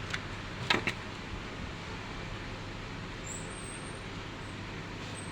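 Two or three sharp clicks about a second in, from handling the all-in-one PC's parts during disassembly, over a steady background hum.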